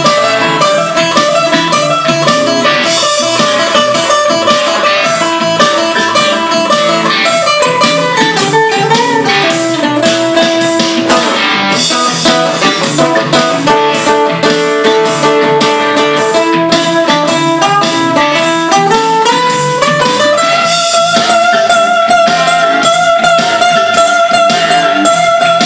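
Acoustic guitar picked in a busy instrumental passage with no singing, with runs that fall in pitch and later climb back up. Near the end a long held, wavering note sounds over the picking.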